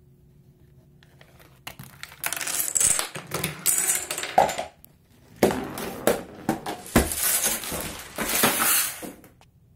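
Small hard objects clattering and rattling as a homemade chain-reaction machine runs: marble, dominoes and dry cat food. The sound comes in two long runs of dense clicking and rattling, the first about two seconds in, the second from about five seconds in until near the end.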